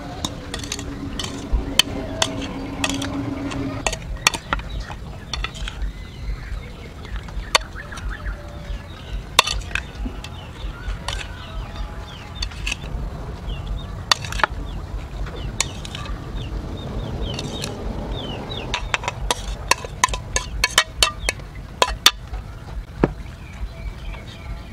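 A metal spoon clinking and scraping against a steel tray and bowl as chopped cooked duck meat is spooned out and spread, many sharp clinks at an uneven pace.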